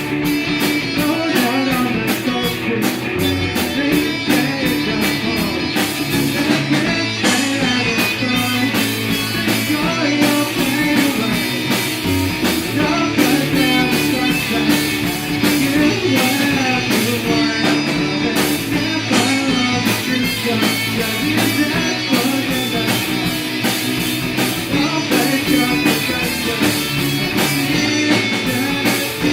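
A rock band playing a song: guitar over a drum kit keeping a steady beat.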